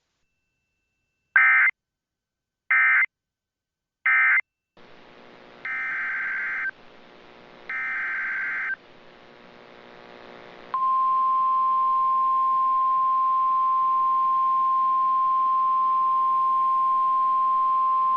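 Emergency Alert System SAME data bursts: three short buzzing bursts close out the tornado warning. Then, over a steady hiss, two longer data bursts open the next alert, followed by the steady 1050 Hz NOAA Weather Radio warning alarm tone.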